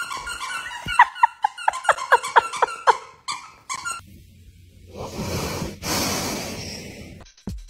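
A dog whining in a quick run of short, high squeaks, each falling in pitch, about five a second. About a second and a half after they stop come a couple of seconds of breathy exhaling.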